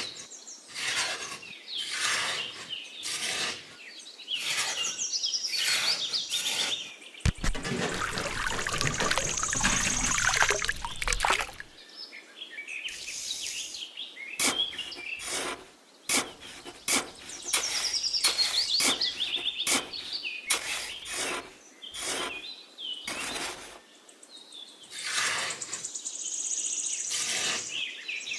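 Birds chirping over a run of sharp clicks and knocks, with a few seconds of dense rushing noise about a quarter of the way in.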